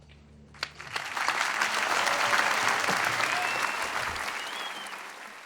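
A live concert audience bursting into applause as the band's final sustained low note dies away. The clapping swells within the first second or so, holds full for a couple of seconds, then slowly thins out.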